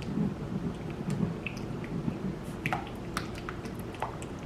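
A spoon stirring warmed peanut butter and honey in a mixing bowl: soft sticky squishing, with several light clicks of the spoon against the bowl in the second half.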